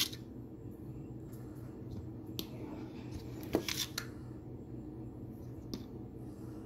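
A spoon clicking and scraping lightly against a ceramic bowl a few times while sugar is spooned onto buttered bread, the sharpest clicks about three and a half and four seconds in, over a steady low hum.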